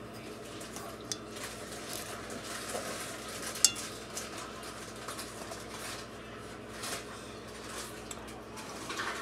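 A utensil stirring and scraping ribs in barbecue sauce in a baking dish, with scattered light clinks and one sharp clink about three and a half seconds in.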